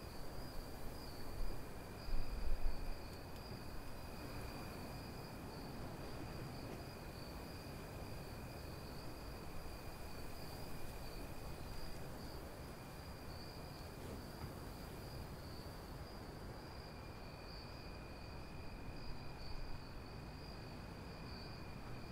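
Night-time chorus of crickets chirring steadily at two pitches, the lower one dropping out for a few seconds midway, over a faint low outdoor rumble that swells briefly about two seconds in.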